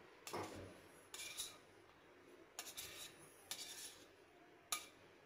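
Kitchen knife blade scraping across a wooden board in short strokes, lifting cut strips of dough off it: about five faint scrapes, a second or so apart.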